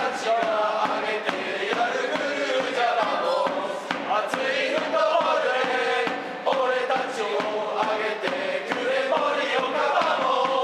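Football supporters' group chanting a team chant in unison, many voices singing Japanese lyrics that end on 'VAMOS', over a steady beat.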